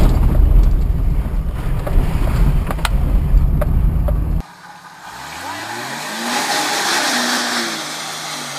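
Loud engine and drivetrain rumble inside an off-road 4x4 driving through mud, with sharp knocks of mud and debris hitting the windshield. About four seconds in it cuts suddenly to a quieter outside sound of a mud-covered Jeep climbing a steep sandy slope, its engine revving up and down.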